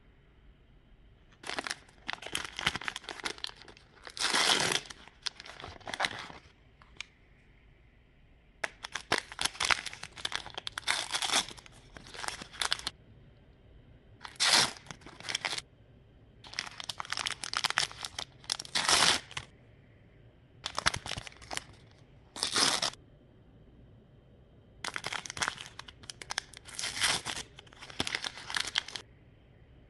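Shiny plastic wrapper of an L.O.L. Surprise Mini Sweets blind pack crinkling and tearing as it is opened by hand. The sound comes in repeated bursts of a few seconds each, with short quiet gaps between them.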